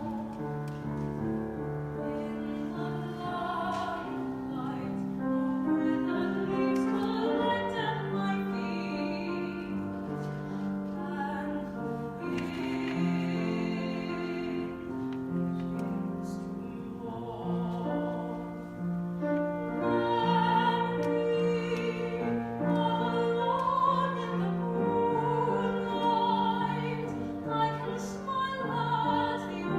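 Slow ballad performed in an operatic style: a sustained sung melody line with vibrato over piano accompaniment.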